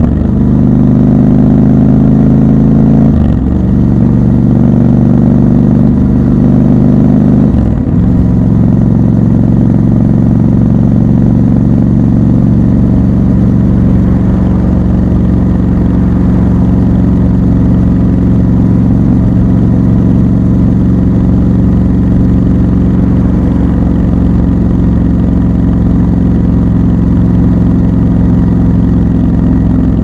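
Triumph Scrambler 1200 XC's 1200 cc parallel-twin engine under way, its note breaking briefly about three and eight seconds in as gears change, then running steadily at cruising speed.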